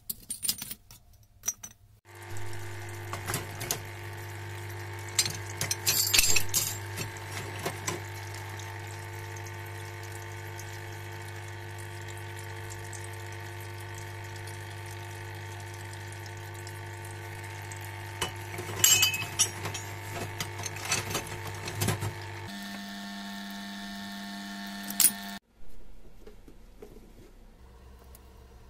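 A parts-cleaning machine switches on with a steady mains hum and a wash of liquid, cleaning the breaker's metal parts. Two spells of metal clinking come from the parts in the wire basket. Near the end its tone changes for a few seconds and then it cuts off.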